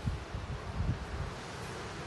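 Wind buffeting the microphone in low, uneven gusts over a steady hiss.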